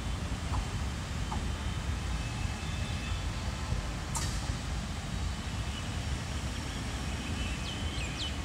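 Passenger train rolling away down the track, a steady low rumble of coaches on the rails. There is one brief high squeak about four seconds in, and a few short high chirps near the end.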